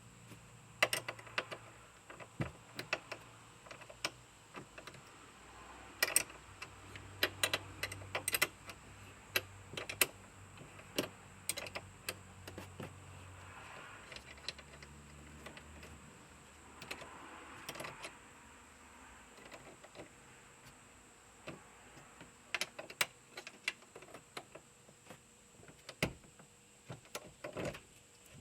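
Scattered metallic clicks, taps and small clatters at irregular intervals from hand tools and a battery terminal being worked loose and handled, over a faint low hum.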